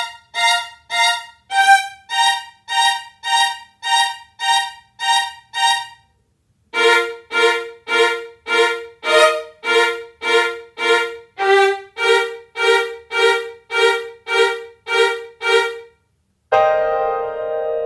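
Instrumental music: a string-like instrument repeating short, evenly spaced notes, about two and a half a second, in two phrases with a brief pause between them, the second phrase lower. A held chord comes in near the end.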